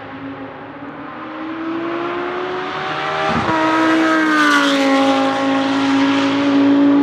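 Audi R8 LMS GT2's 5.2-litre V10 accelerating, its pitch climbing, with a quick upshift about halfway through. It passes close by just after the shift, its pitch dropping as it goes past, then keeps pulling away loudly.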